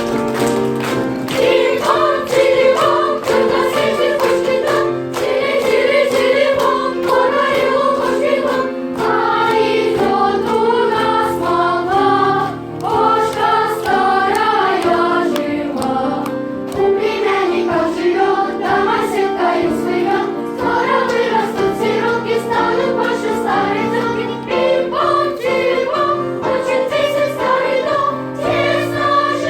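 A group of voices singing a song together over instrumental accompaniment.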